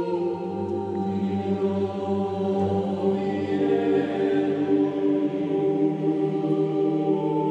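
Gregorian chant in Latin sung by monks: a slow line of long held notes.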